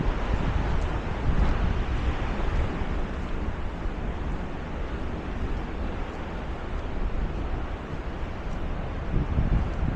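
Steady rushing roar of the water at Niagara Falls, with wind buffeting the microphone in a low rumble.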